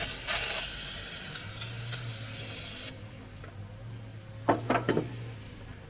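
Aerosol spray hissing steadily for about three seconds as bolts and nuts are cleaned, then cutting off; a few sharp metal clinks follow near the end.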